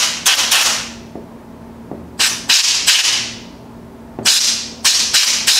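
Canned compressed air blasting dust out of a laptop cooling fan: short, sharp hissing bursts that cut in suddenly, about ten in three bunches of three or four.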